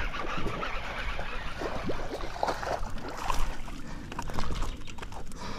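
Water splashing and churning as a hooked snakehead thrashes at the surface while it is reeled in on a baitcasting reel, an irregular busy splashing.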